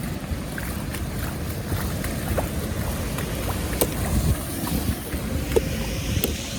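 Wind buffeting the microphone in a steady low rumble over the sound of moving water, with a few light clicks scattered through it.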